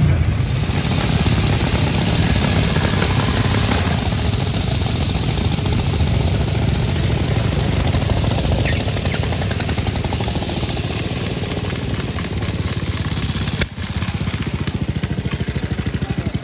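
Vintage motorcycle engines running steadily at low revs, with an even throbbing beat. There is a brief drop in the sound about two-thirds of the way through, after which the beat comes through more distinctly.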